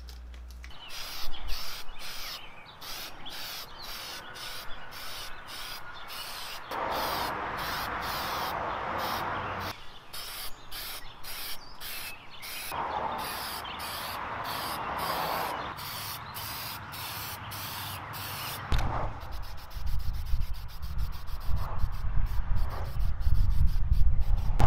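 Aerosol spray can of gray primer being shaken, its mixing ball rattling at about three clicks a second, with two hissing spray bursts of about three seconds each. From about three-quarters of the way in, a low rumble of wind on the microphone joins the rattling.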